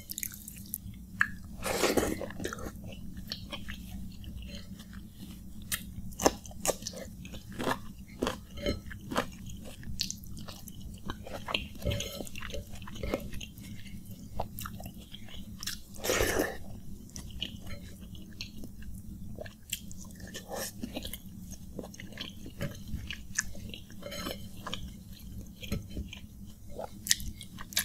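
Close-miked eating of panta bhat, water-soaked rice eaten by hand: chewing and wet mouth clicks, mixed with fingers squishing the soaked rice in the bowl. Two longer, louder wet sounds come about 2 seconds and 16 seconds in.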